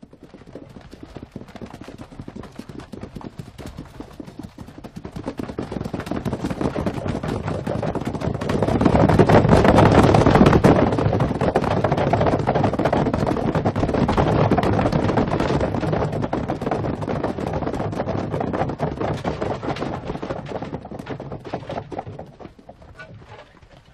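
A dense, rapid clatter of a large army on the move. It swells to its loudest about ten seconds in, then dies away near the end.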